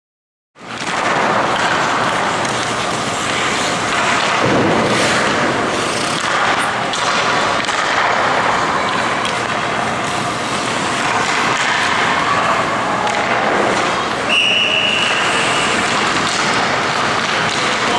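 Ice-rink practice noise starting about half a second in: hockey skates scraping and carving the ice, with scattered knocks of sticks and pucks. About fourteen and a half seconds in comes one short, steady whistle blast lasting about a second.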